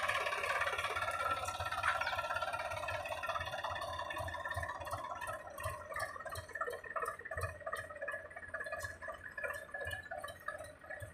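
Powertrac Euro 47 tractor's diesel engine running as it pulls its rotavator through flooded paddy mud, growing fainter as the tractor moves off. In the second half the sound turns uneven and broken.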